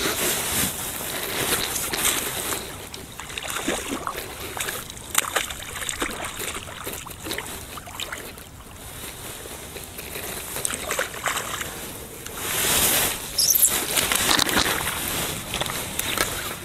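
Hooked trout splashing and thrashing at the water's surface close to the bank as it is played toward a landing net, with several irregular splashes.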